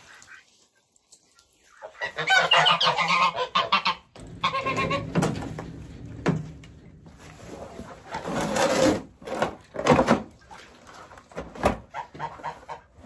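Backyard poultry calling in repeated loud bouts of pitched calls, starting about two seconds in.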